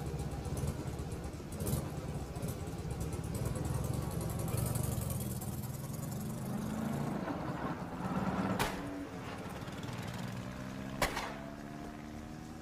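Sidecar motorcycle engine running, revving up as it pulls away and then fading. Two sharp cracks cut in, the second, about eleven seconds in, the louder.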